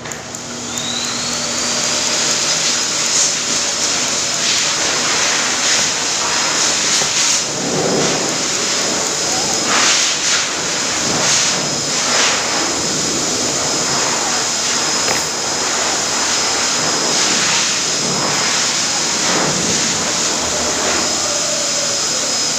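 Electric pet hair dryer blowing. Its motor whines up to speed within the first second, then runs steadily with a high whine over a loud rush of air. The rush swells briefly several times, and the whine starts to wind down at the very end.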